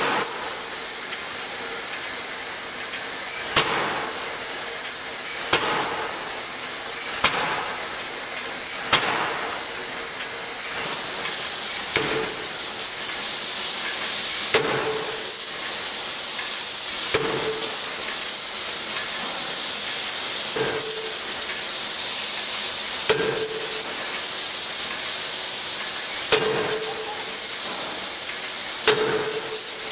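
Heavy forging hammer striking a red-hot steel workpiece: about a dozen sharp blows, a second and a half to three and a half seconds apart, many leaving a short metallic ring, over a steady hiss.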